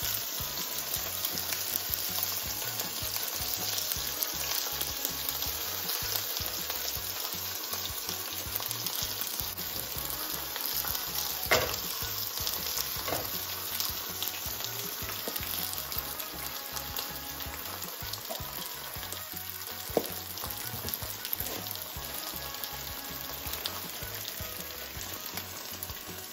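Beef strip steak and sliced onions sizzling steadily in olive oil in a frying pan. Two sharp taps stand out, one a little before halfway and one about three quarters of the way through.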